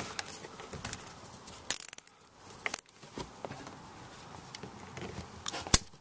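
Nylon zip ties being fastened around a trailer wiring harness: scattered small clicks and plastic-and-wire rustling as the ties are threaded and pulled tight, with one sharp click near the end.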